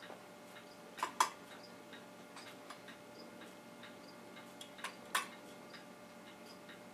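Sharp double clicks about a second in and again about five seconds in, over faint regular light ticking and a low steady hum.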